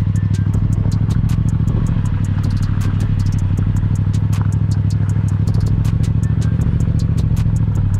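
Yamaha FZ-07's parallel-twin engine running at a low, steady speed as the bike rolls over gravel, with many sharp clicks of stones under the knobby tyres.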